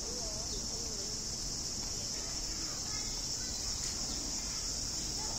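Cicadas buzzing steadily in one high, unbroken drone.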